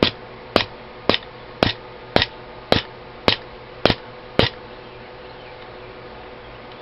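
Rubber mallet tapping a part of an AK-47 back into place: nine sharp, evenly spaced taps about two a second, stopping a little past halfway.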